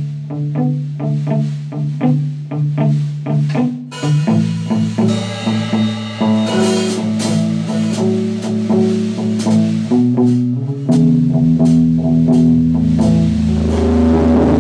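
Slow blues jam on guitar and bass, with notes picked one after another. About four seconds in the sound thickens into fuller, held chords. About eleven seconds in a steady low hum sets in and holds, which the players take for feedback through the microphone.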